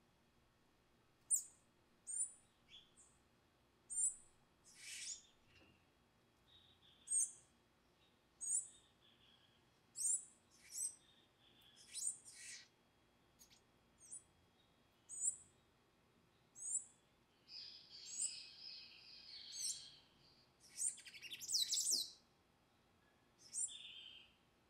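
Palm tanager fledgling begging: short, high-pitched calls repeated about once a second, breaking into a raspier stretch past the middle and a rapid, louder flurry of calls near the end.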